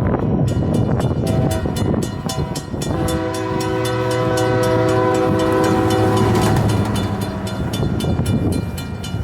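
Buffalo & Pittsburgh Railroad train passing close by. Its locomotive horn sounds a short note about a second and a half in, then one long chord of several tones from about three seconds in to near seven seconds. Under the horn, the wheels click rapidly and steadily on the rails.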